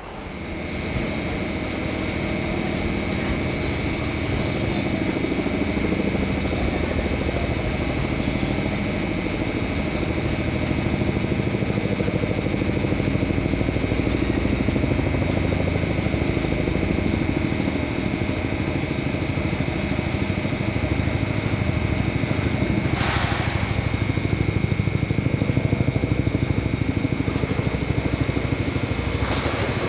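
JR Freight DE10 diesel locomotive approaching, its V12 diesel engine running with a low throb that grows steadily louder. A steady high-pitched whine runs under it, with a short burst of hiss about 23 seconds in.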